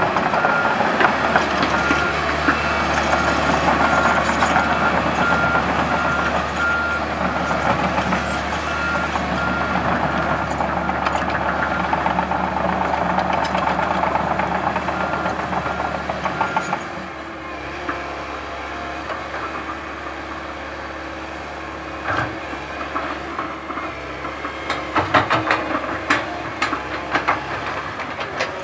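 Komatsu PC130 hydraulic excavator running under load, with an alarm beeping at an even pace through the first half and stopping about two-thirds of the way in. The engine then drops a little, and sharp clicks and knocks come in the last few seconds.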